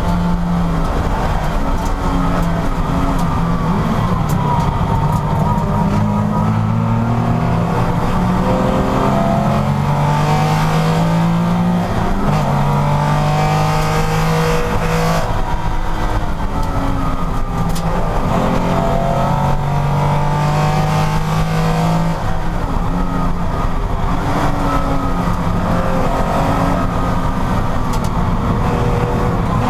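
Porsche race car engine at full racing load, its pitch climbing through the gears and dropping at each shift, over and over, as it accelerates and slows for corners.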